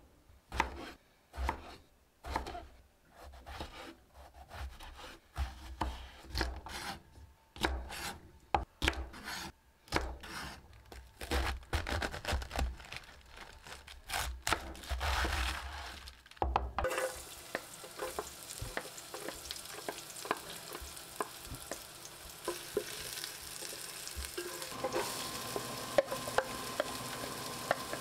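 Kitchen knife chopping eggplant and cabbage on a wooden cutting board: an irregular run of sharp strokes, each with a dull thud from the board. Partway through this gives way to chopped onion sizzling in oil in a pot while a wooden spatula stirs and scrapes it, the sizzle getting louder near the end.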